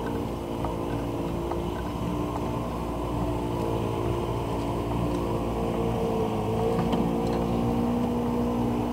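An engine running steadily, its pitch drifting slightly up and down, with a few faint clicks.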